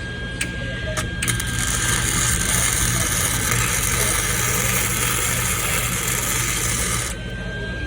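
Electric welding arc: a few short sparks as the arc is struck, then about six seconds of steady crackling while a bolt is welded onto a lug key, cutting off abruptly when the arc is broken.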